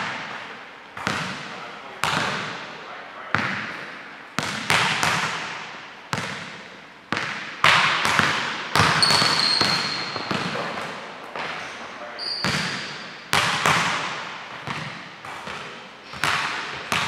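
Basketballs bouncing on a hardwood gym floor: sharp thuds about once a second, each ringing out in the large hall's echo. A couple of brief high sneaker squeaks come around the middle.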